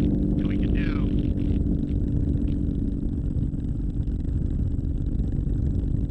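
Minimax 1100r ultralight's engine and propeller running steadily in flight, mixed with heavy wind rush on an outside microphone.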